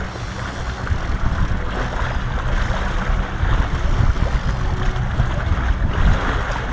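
Boat engine running steadily at trolling speed, a low rumble mixed with wind and water noise.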